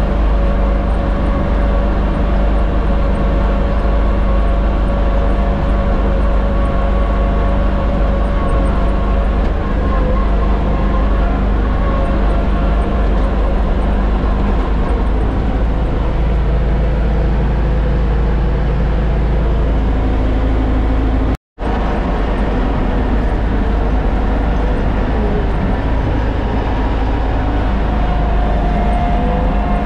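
John Deere X729's three-cylinder Yanmar diesel engine running steadily as heard from inside its closed cab while the tractor pushes snow, its pitch shifting a couple of times. The sound cuts out for a moment about two-thirds of the way through.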